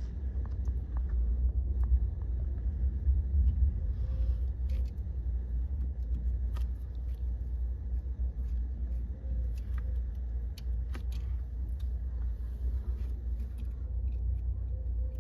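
Small clicks and ticks of a screwdriver working screws loose on a car's steering column, over a steady low rumble.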